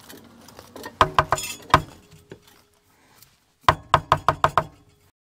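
Sharp knocks: a quick cluster about a second in, then a rapid run of about seven taps near the end, as an upturned can of cranberry sauce is struck to knock the sauce out onto a plate.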